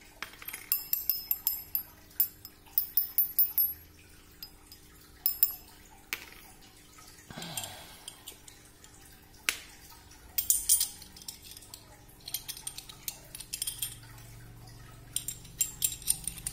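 Metal parts of a 1.9-inch beadlock RC wheel clinking and tapping as the rim and beadlock ring are handled and small bolts are driven in with a small screwdriver. The sharp metallic clicks come in irregular clusters, with the busiest stretches near the start and near the end.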